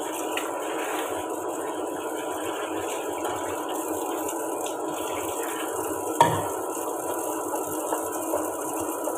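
Kitchen tap running steadily onto a metal pot being washed by hand in the sink, with one sharp clank of the pot about six seconds in.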